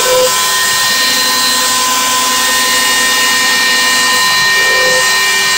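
Bosch 1-horsepower router mounted as a CNC spindle, running steadily at high speed: a loud, even rushing noise with steady high whining tones.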